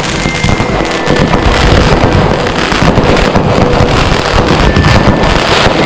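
Ground firework battery firing, a loud dense crackling of many rapid small pops over a continuous hiss of sparks.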